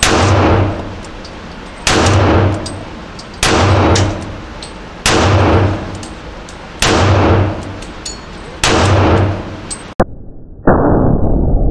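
Smith & Wesson M&P9 9mm pistol fired six times, one shot every couple of seconds, each blast ringing out in the reverberation of an indoor range. Near the end the shots give way to a sudden steady dull noise.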